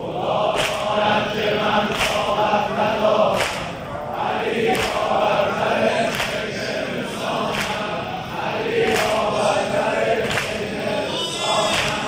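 Large crowd of men chanting a Shi'a Muharram mourning chant (madahi shur) in unison with a lead eulogist, with a sharp beat about every second and a half as the crowd strikes their chests (sineh-zani).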